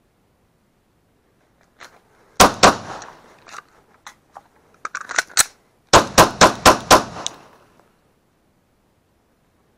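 Glock 20 10mm pistol firing: two quick shots, then a few fainter clicks, then a pair of shots followed by a fast string of about six more shots.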